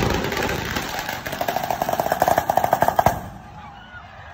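Fireworks crackling in a rapid string of sharp bangs, about eight a second, that stops suddenly about three seconds in.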